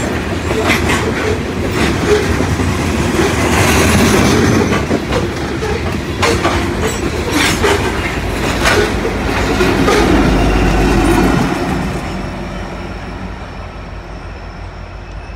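Loaded BNSF coal train rolling past: steel wheels of the hopper cars clicking over rail joints over a heavy rumble. The rear distributed-power locomotive's diesel engine adds a deep low rumble as it goes by about ten seconds in, and then the train sound fades away.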